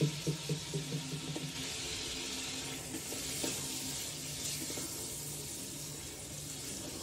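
Mutton pieces frying in oil and tomato masala in a stainless steel wok, with a steady sizzle. A spatula scrapes and taps against the pan in the first second or so as the meat is stirred.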